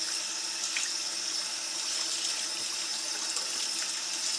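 Cool tap water running steadily into a plastic utility sink and splashing over a coyote hide as it is rinsed by hand, washing the leftover tanning cream out of the hide.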